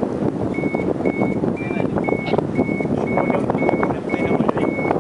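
Paraglider flight variometer beeping its climb tone: nine short, even high beeps at about two a second, the third a touch higher, over steady rushing wind noise.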